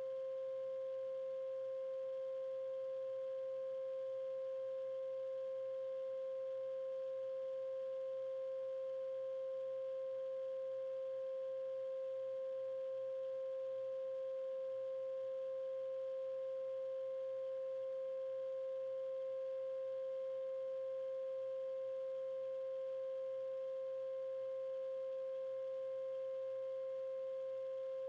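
A steady 528 Hz pure tone, the so-called healing frequency, held without change, with a fainter overtone an octave higher.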